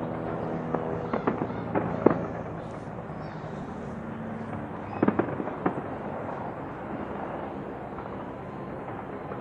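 Distant fireworks bursting: a string of sharp bangs in the first couple of seconds, the loudest about two seconds in, then another cluster of bangs about five seconds in, over a steady rumble.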